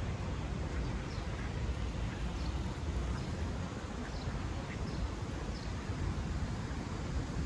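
Small birds in the trees giving short, high chirps, faint and repeating about twice a second, over a steady low background rumble.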